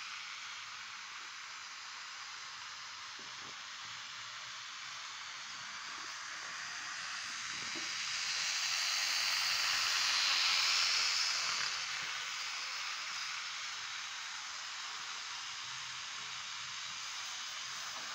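TT-scale model electric train running on its track: the small wheels on the rails and the locomotive's motor make a steady high hiss. It grows louder around the middle as the train passes close, then falls back.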